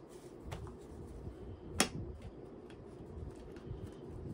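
Paper banknotes and cash envelopes being handled and sorted, with a few light clicks and one sharper click a little under two seconds in.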